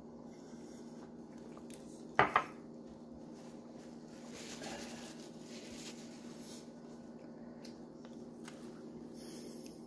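Two sharp clinks of tableware against a hard counter in quick succession about two seconds in, over a steady low hum; a soft rustle follows a couple of seconds later.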